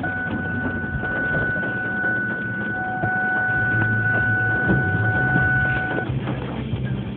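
A car's electronic warning tone sounding steadily for about six seconds, then cutting off suddenly, over a low hum.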